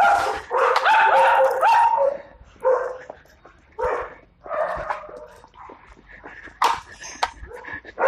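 A dog barking and whining: a loud run of calls with rising pitch over the first two seconds, then a few shorter barks spaced through the rest.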